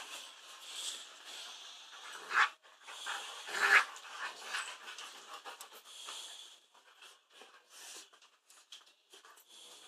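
Dog panting close to the microphone: quick breaths with two louder huffs a few seconds in, fading to fainter, sparser breaths in the second half.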